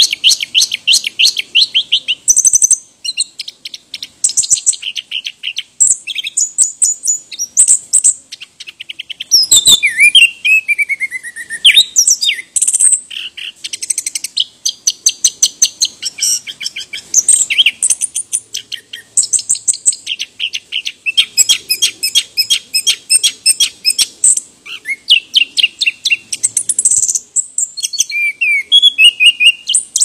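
Chestnut-capped thrush (anis kembang) singing a long, varied song of fast repeated high notes and trills, broken by short pauses, with a falling whistled slide about ten seconds in.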